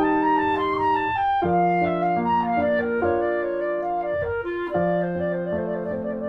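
Background instrumental music: a slow melody of long held notes.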